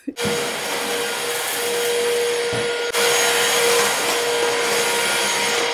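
Cordless stick vacuum running steadily on a tiled floor, a constant motor whine with a steady hum under the rushing air. It steps slightly louder about three seconds in.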